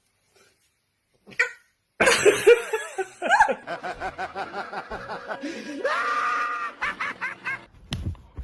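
A person laughing hard in quick pulses, starting suddenly about two seconds in and rising into a high-pitched squeal about six seconds in, with a short click near the end.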